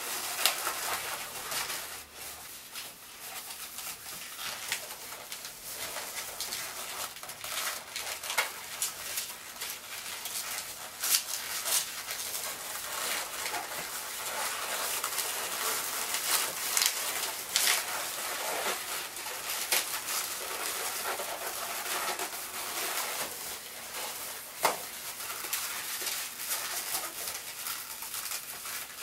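Latex modelling balloons squeaking and rubbing against each other as they are twisted and wrapped together, with many short sharp squeaks scattered throughout.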